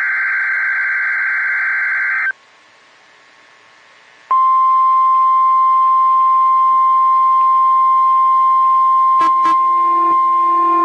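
NOAA Weather Radio emergency alert: the end of a SAME digital header burst, a buzzy warbling data tone, cuts off about two seconds in. After about two seconds of silence the steady 1050 Hz weather radio alert tone comes on and holds, with two brief clicks and some lower steady tones joining it near the end.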